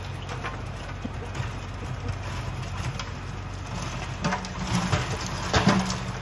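A compact tractor's diesel engine running steadily while pulling a rear rototiller through the soil. A few louder knocks come near the end.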